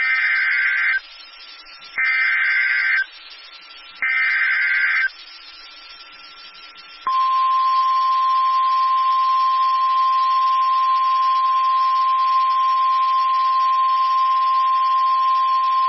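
Emergency Alert System broadcast for a severe thunderstorm warning. Three one-second bursts of SAME digital header data, two seconds apart, are followed by the steady single-pitch 1050 Hz warning alarm tone, held for about nine seconds.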